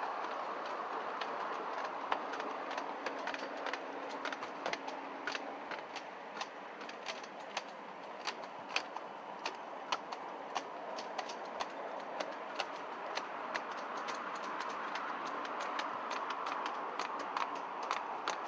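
Miniature live-steam railway train running along the track, a steady rush from the wheels with sharp clicks, a couple or so a second through the middle stretch, as the wheels pass over the rail joints.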